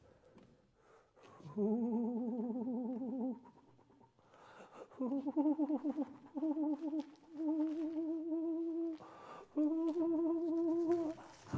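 A man humming a slow, wordless tune in four held phrases, his voice wavering with a heavy vibrato; the first phrase is lower, the next three a little higher.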